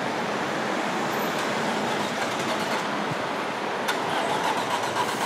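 City street traffic noise: a steady wash of passing cars and engines, with a few faint clicks in the second half.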